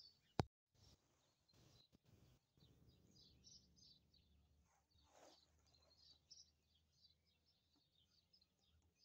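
Faint birds chirping, many short high calls, with one sharp click about half a second in.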